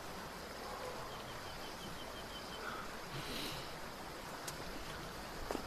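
Faint outdoor nature ambience with a steady, even background hiss. About a second in comes a short, high, chirping trill of about eight quick chirps, and there are a couple of faint clicks later.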